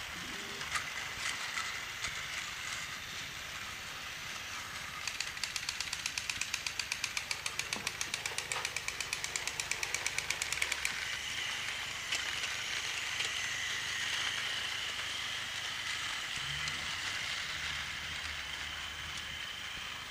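Battery-powered Plarail toy trains running on plastic track: a steady motor whir with rattling. For about six seconds in the middle there is a fast, even clicking of about six clicks a second, and after that a higher, steadier whine.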